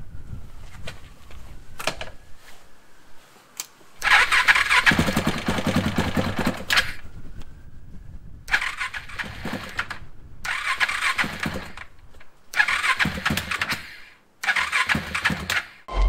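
KTM 690's single-cylinder engine being turned over by its electric starter in five bursts of a second and a half to three seconds each, the first and longest about four seconds in, with short pauses between. The clacking from the starter drive is gone, the sign that the replaced freewheel (starter clutch) now engages.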